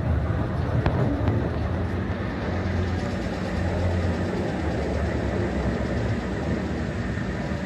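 Festungsbahn funicular car climbing away from the station on its haul cable, a steady low running sound from the car and cable on the track, with a couple of faint ticks about a second in.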